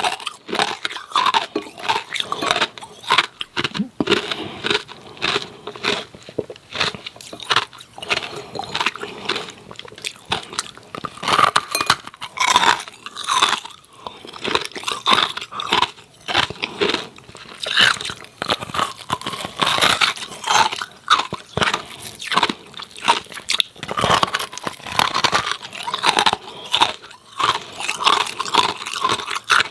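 Hard ice cubes being bitten and chewed close to the microphone: continuous loud, irregular crunching and cracking.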